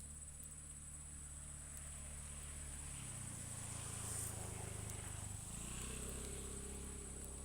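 Insects chirring in a steady, high, even tone, over a low hum that shifts pitch twice.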